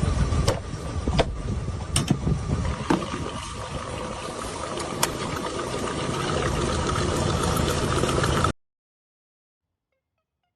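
Machinery running with a steady hum and scattered sharp clanks and knocks, cutting off suddenly about eight and a half seconds in, followed by silence.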